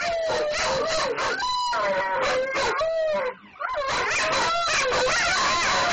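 Several huskies howling together, their wavering calls overlapping at different pitches, with a brief break a little past halfway.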